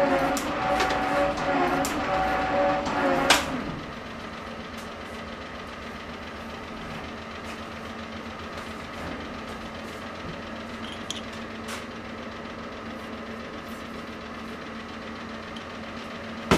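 Värnamo metal shaper running, its ram stroking over an anvil with a steady whine. About three and a half seconds in there is a sharp clank and the ram stops, leaving a much quieter steady hum, with a single click at the very end.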